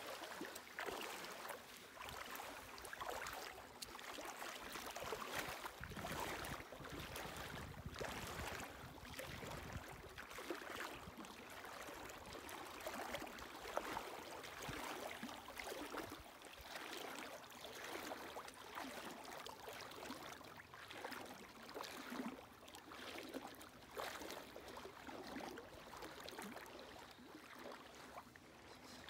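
Small waves lapping in the lake shallows, a soft irregular splashing that swells and fades about once a second.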